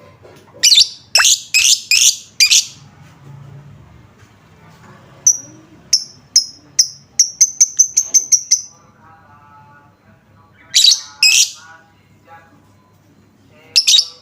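Lovebird calling in loud, shrill, short shrieks, with a fast run of short high ticking notes in the middle. The bird's lure call is meant to set other lovebirds calling back.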